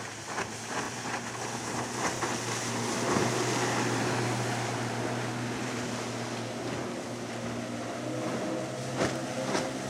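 Outboard motors of water taxi speedboats running at speed, a steady engine hum over the rushing hiss of the wake and spray. Two short sharp knocks near the end.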